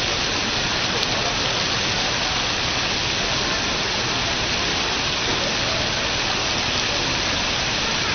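Water falling steadily from a computer-controlled water curtain (graphical waterfall) and splashing into its basin, an even rushing hiss with no breaks.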